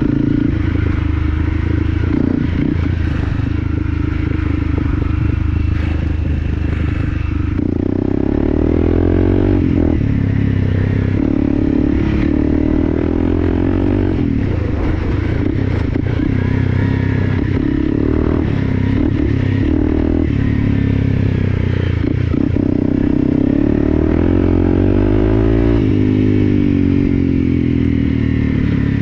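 Off-road motorcycle engine under way on a rough dirt track, revving up and dropping back again and again as the rider works the throttle and gears, with rattling and knocks from the rough ground throughout.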